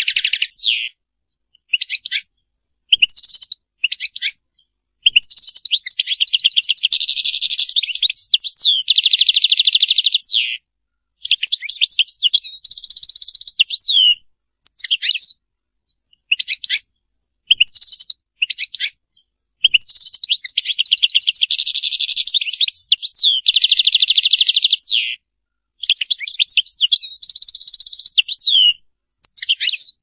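European goldfinch singing: phrases of rapid twittering trills and fast, buzzy rattling notes, broken by short pauses of about a second.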